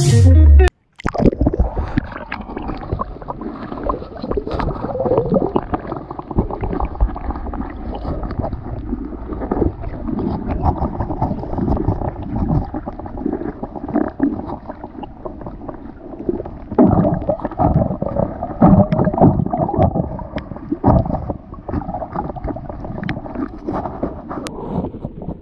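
Underwater sound of digging in a sandy seagrass bed: muffled water sloshing and gurgling, with irregular knocks and scrapes as a long knife is worked into the sediment to dig out peanut worms.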